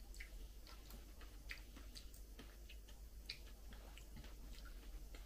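Faint, irregular small clicks of eating dragon fruit with a teaspoon: the spoon scooping the flesh out of the fruit and quiet chewing.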